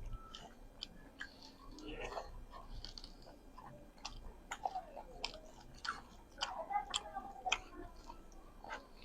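A person chewing food close to the microphone, with irregular small wet clicks and bites from the mouth.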